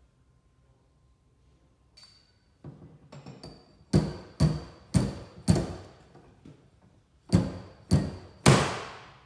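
Sharp knocks of a glue-pull dent puller working on a car's rear quarter panel during paintless dent repair. After a few light clicks come four strikes about half a second apart, a pause, then three more, each ringing briefly.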